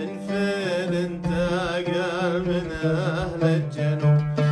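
A man singing with a wavering, ornamented voice while he accompanies himself by plucking an oud.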